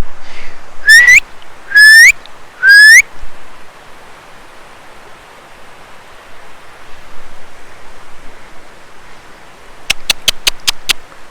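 Three loud human whistles, each rising to an upward sweep at the end, about one, two and three seconds in. They are calls whistled to hear whether anything answers. After them comes the steady rush of a small creek, and near the end a quick run of about seven sharp clicks.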